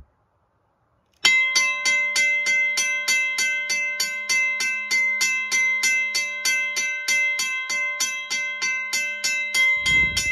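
Western-Cullen-Hayes mechanical railway crossing bell, run off a battery, ringing loudly: its hammer strikes the gong about three to four times a second, starting about a second in, with a low thump right at the end as the battery lead is handled.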